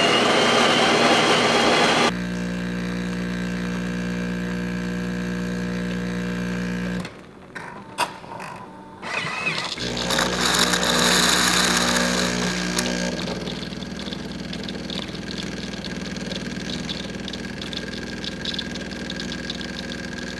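Jura E8 super-automatic espresso machine making a caffè barista: its built-in grinder finishes grinding in the first two seconds, then the pump hums steadily while the shot brews. After a few clicks at about seven seconds, the pump starts again with a hiss and dispenses the separate bypass hot water into the coffee, settling into a steady hum.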